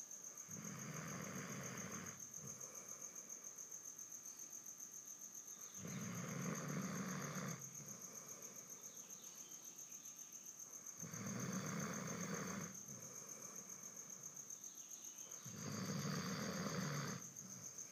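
A sleeping pet snoring in slow, even breaths: four long snores about five seconds apart. A steady high-pitched trill runs underneath throughout.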